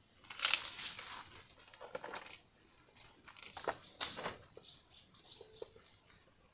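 Forest insects chirping in a steady, pulsing high buzz. Loud noisy rustles break over it about half a second in, again around two seconds, and once more near four seconds.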